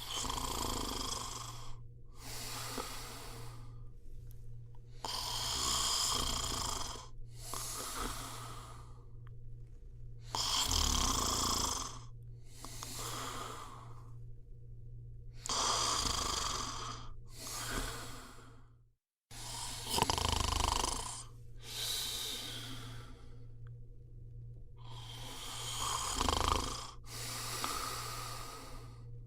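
A person snoring in slow, regular breaths, each breath drawn in and let out noisily, about one breath every five seconds. Some snores are heavier and lower, around 11, 20 and 26 seconds in. The sound cuts out completely for a split second just before 19 seconds.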